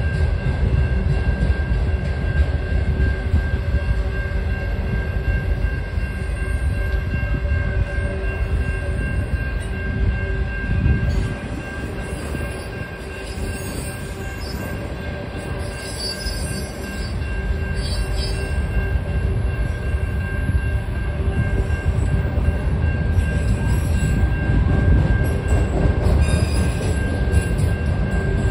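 Freight train of autorack cars rolling past at a grade crossing: a steady heavy rumble of wheels on rail, with short high-pitched wheel squeals coming and going from about six seconds in. The rumble eases for a few seconds near the middle, then builds again.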